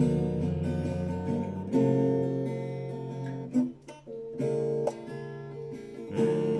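Acoustic guitar strummed chords, an instrumental break with no singing. The playing drops away briefly about four seconds in, then resumes.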